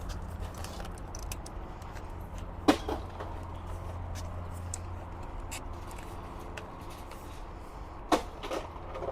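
Knocks and small clicks of hand work on a scrapped forklift's hydraulic line fittings, with two sharper knocks standing out, over a steady low hum.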